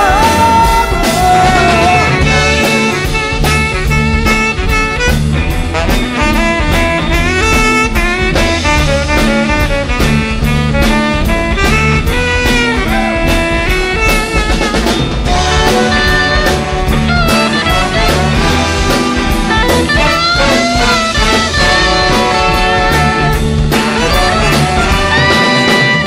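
Live band with a horn section playing an instrumental break: saxophones and trumpets carry the melody over electric guitar, keyboard and drum kit.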